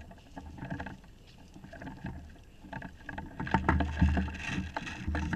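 Handling noise on a rifle-mounted camera: irregular rustling and small knocks over a low rumble as the player moves with the airsoft rifle, getting louder about three seconds in.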